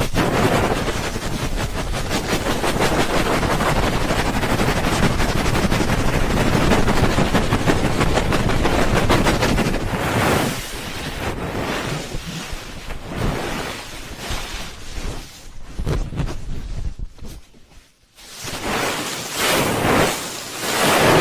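Hands rubbing the microphone's ears in the ASMR 'helicopter' ear-rubbing trigger: a fast, even fluttering chop that about halfway through slows into separate rubbing swishes. Shortly before the end the rubbing drops away almost to silence, then picks up again.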